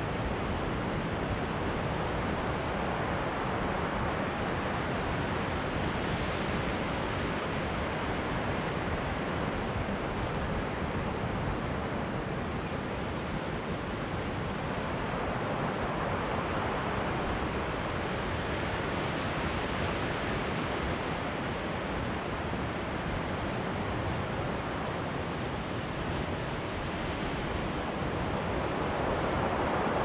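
Ocean surf breaking and washing around rocks below a sea cliff: a steady rushing that grows a little louder near the end.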